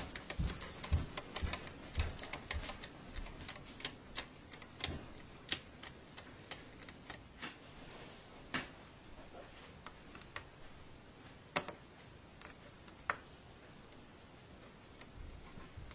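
Irregular small clicks and taps of a Torx T7 screwdriver and screws being worked into a laptop's plastic screen housing. The clicks come quickly at first, then thin out, with one sharper click past the middle.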